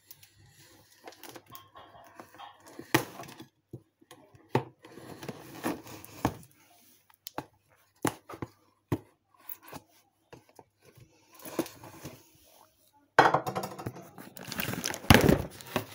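A cardboard box being opened by hand: scattered scrapes, taps and rustles of cardboard and packaging, growing louder and busier about thirteen seconds in, with a thump near the end.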